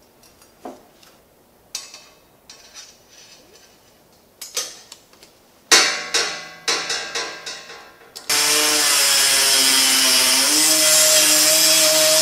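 Light clicks and metallic clanks as metal parts are handled on a workbench. About eight seconds in, a rotary tool starts with a loud, steady high whine; its pitch shifts partway through as its cut-off wheel cuts into a thin metal tube.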